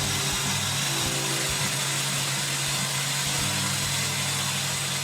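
Homemade belt grinder's electric motor running steadily, a constant low hum with the hiss of the sanding belt.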